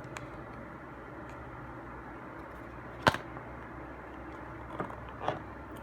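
An iPhone box and its packaging being handled over a steady low background hum. There is one sharp click about three seconds in, then two softer knocks near the end.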